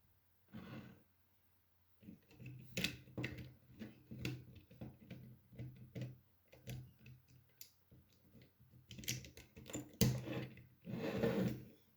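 Plastic Lego bricks clicking and clattering as they are handled and fitted together, in an irregular run of small knocks. A brief rustle comes just under a second in and another near the end.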